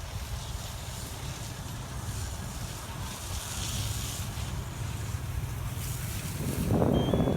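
Wind buffeting the microphone over a steady low rumble. Near the end a louder rushing noise swells for about a second, with a thin high tone over it.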